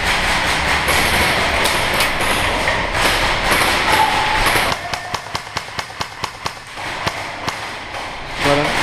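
Loud, busy noise, then about five seconds in a quick run of sharp cracks or knocks, roughly six a second for about two seconds.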